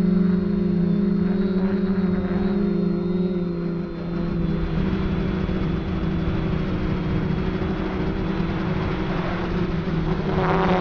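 FPV racing quadcopter's brushless motors and propellers humming steadily in flight, heard from the onboard camera along with wind rushing over the microphone. It goes briefly quieter about four seconds in and gets louder near the end as the motors throttle up.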